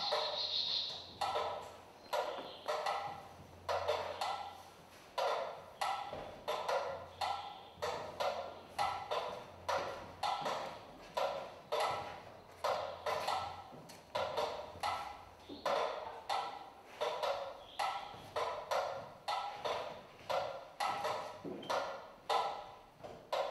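Several mechanical pyramid metronomes ticking at different tempos, their sharp clicks overlapping in an uneven, shifting rhythm, each tick ringing briefly.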